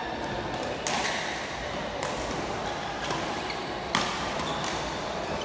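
Badminton rackets striking a shuttlecock during a rally: a few sharp hits, about a second in, at two seconds, and the loudest about four seconds in.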